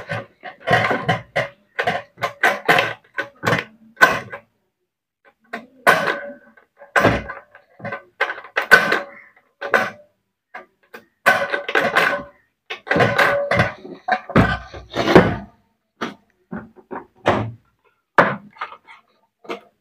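Knocks and clanks from the rice cooker's metal housing being handled and turned over on the bench, some strokes ringing briefly, in irregular clusters with short pauses.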